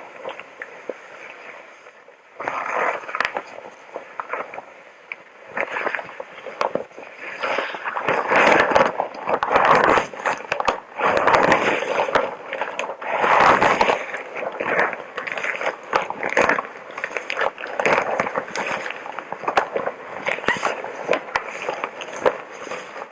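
Hazmat suit material crinkling and rustling close to the microphone: an irregular run of crackles and sharp clicks, swelling louder in the middle.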